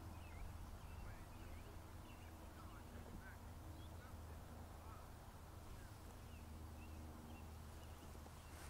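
Faint outdoor background: a low steady hum with scattered faint high chirps.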